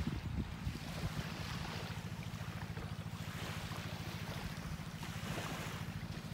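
Boat engine running steadily with a low, rapid, even putter, over a hiss of washing water that swells a couple of times.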